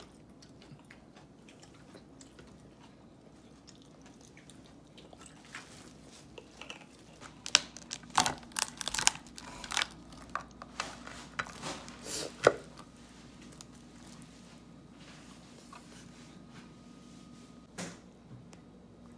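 Cooked crab being cracked and pulled apart by hand: a cluster of sharp shell cracks and snaps in the middle, with scattered softer crunches before and after.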